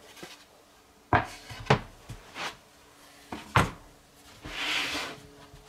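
MDF panels being handled and set down on a wooden workbench: a few sharp wooden knocks as the boards are put down, then a longer scraping slide of a board across the bench near the end.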